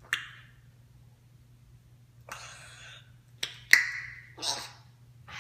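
African grey parrot making a few sharp clicks, a short hiss about two seconds in, and a brief whistled note right after a loud click near four seconds.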